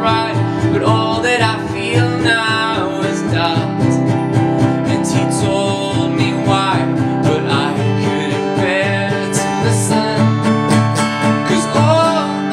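Solo acoustic guitar strummed in a steady rhythm, with a man singing over it.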